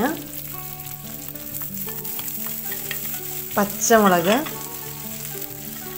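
Hot coconut oil with mustard seeds, urad dal and cumin sizzling in a clay pot as chopped cabbage and diced potato go in: a steady frying hiss.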